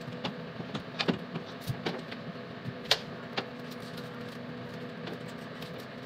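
Scattered clicks and knocks of plastic shower head parts being handled and pushed together, over a steady low hum.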